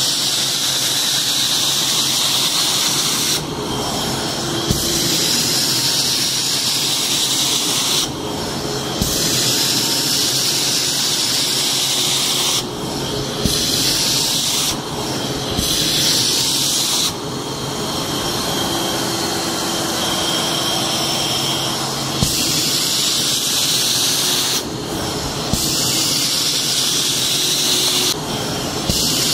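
Hot water extraction machine cleaning upholstery: a loud, steady hiss of spray and suction through a stainless steel upholstery hand tool over a running vacuum motor. The hiss drops away briefly every few seconds as the tool is worked across the fabric.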